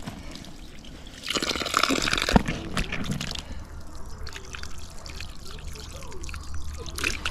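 Water running from an outdoor brass tap onto a rubber gumboot and splashing into a muddy puddle as the boot is rinsed of mud. The splashing is louder for about two seconds, starting a second in.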